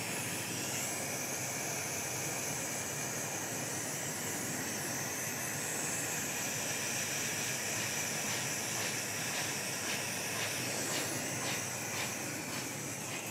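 Steady hiss of a handheld butane hot-air tool's burner blowing hot air onto red dual-wall heat shrink over a crimped battery lug terminal, shrinking it down. Faint light ticking joins in during the second half.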